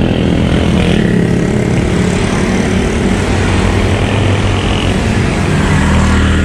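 Road traffic close by: motor vehicle engines running steadily over a loud rush of road and wind noise.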